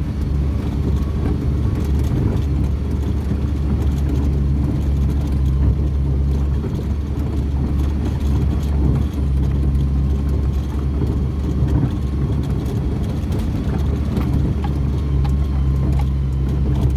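Volvo engine running steadily at a constant speed, a low even hum, while it is checked for a knocking sound.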